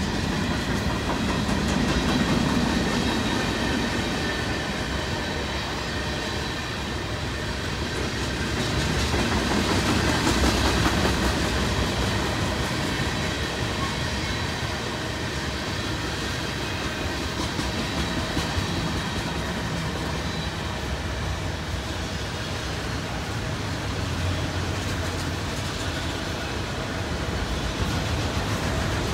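Cars of a mixed-manifest freight train rolling past: a steady rumble of steel wheels on the rails, with faint high tones running through it.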